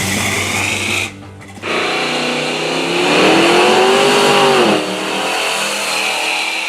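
Guitar music with a car engine revving up and falling back once, about three to five seconds in.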